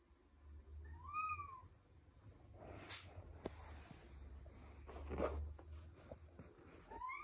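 Domestic cat giving a soft meow about a second in, its pitch rising then falling, with a second meow starting just before the end. A sharp click and some rustling come in between.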